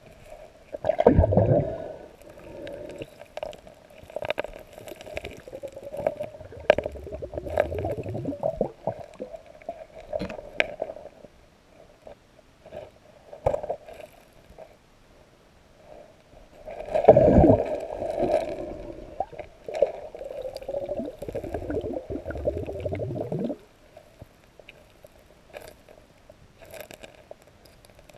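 Underwater recording of a river-bed being worked by hand: water gurgling and bubbling in two loud spells, with scattered sharp clicks of stones knocking together as gravel is fanned and moved.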